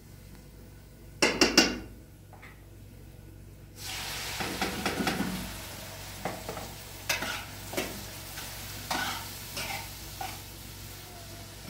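Food sizzling in a hot pan, with a metal utensil clattering and scraping against it. A loud clatter comes about a second in, and the sizzling starts suddenly about four seconds in.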